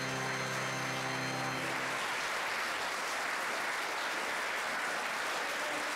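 Audience applauding steadily, with a held musical chord underneath that stops about a second and a half in.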